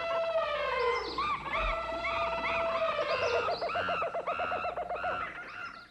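Whistling, warbling sound effect: pitched tones in quick rising-and-falling sweeps about three times a second over a wavering held note, fading out near the end.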